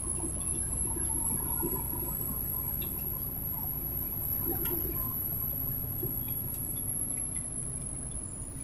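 Steady low road and engine rumble inside a moving vehicle's cab at highway speed, with a few light clicks and a faint, steady high-pitched whine.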